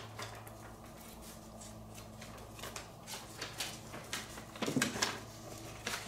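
Paper rustling as a folded instruction manual is handled and leafed through, a run of short scratchy rustles with a louder flurry about five seconds in. A steady low hum runs underneath.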